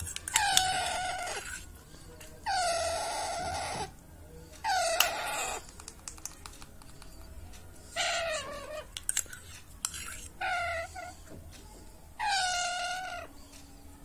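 Baby Alexandrine parakeet giving harsh, drawn-out food-begging calls while being hand-fed from a spoon: six calls, each about a second long, with pauses between. A few light clicks fall between the calls.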